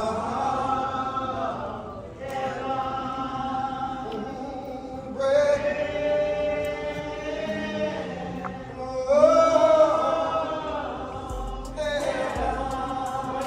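Slow gospel-style singing in long held phrases, each about two to three seconds, with short breaks between them.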